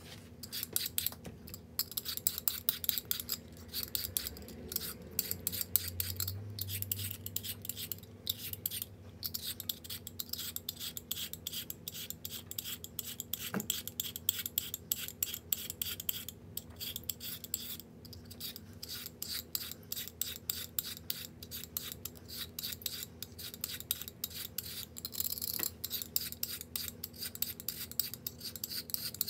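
A carrot being rasped with a kitchen tool in quick, repeated scraping strokes, with a few short pauses, sped up to double speed.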